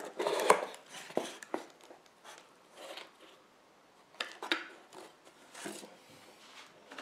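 Cardboard box being opened by hand: tape peeled off the front, the lid lifted and the contents slid out, heard as a few short rustling, scraping bursts and light clicks, loudest right at the start and again about four and a half seconds in.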